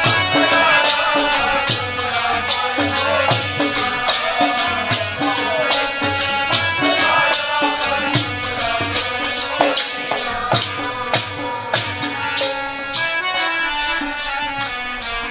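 Instrumental interlude of Sikh dharna kirtan: a harmonium plays a moving melody over a steady beat of jingling hand percussion.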